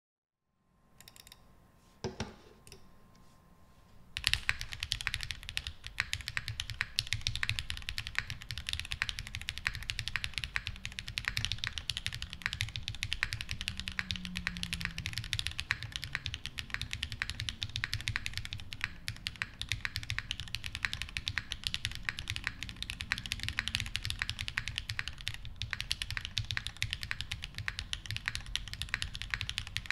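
Steady fast typing on a custom 60% mechanical keyboard: Techno Violet switches lubed with 205g0 on an aluminum half plate, with Durock stabilizers and GMK MoDo 2 keycaps. The typing starts about four seconds in, after a single click near two seconds.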